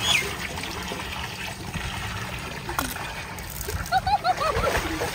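Water pouring steadily from a tubewell outlet pipe into a concrete tank, with splashing as water is scooped by hand. A run of short high chirps comes about four seconds in.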